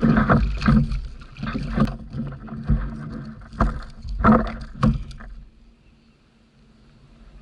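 A freshly landed sierra (snoek) thrashing on a sit-on-top kayak, its body slapping and knocking against the hull in a run of irregular thumps that stops about five seconds in.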